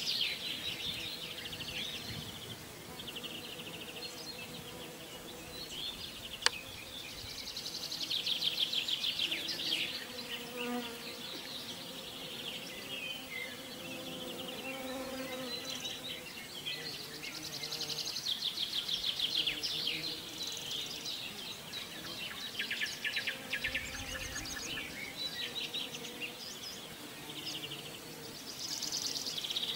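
Songbirds singing repeated high, fast trills, each a second or two long, with a low buzzing insect wavering in pitch in the middle stretch. A single sharp click about six seconds in.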